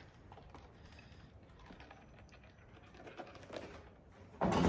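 Small clicks and light rustling as a sunglasses case is opened and the sunglasses are handled, with one louder, short burst of handling noise near the end.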